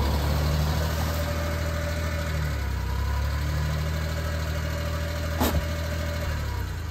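Suzuki Carry mini truck's small engine running steadily at a constant speed, with a single sharp click about five and a half seconds in.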